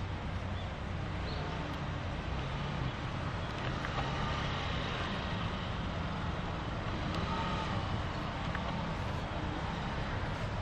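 A steady low engine rumble under outdoor traffic noise, holding even throughout.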